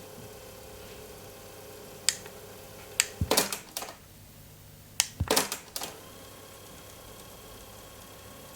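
Mechanical clicks and clunks from a JVC RC-M80 boombox over its steady background hum: one sharp click about two seconds in, then two quick bursts of clicking around three and five seconds in. The hum cuts out between the two bursts and returns afterwards.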